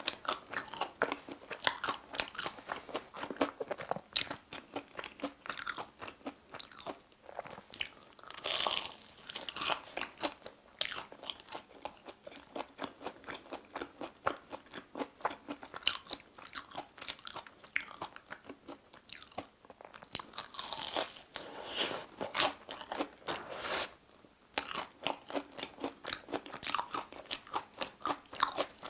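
Close-miked crunching and chewing of a batter-fried Korean hot dog's crispy crust: steady crackly chewing, with several louder bites along the way.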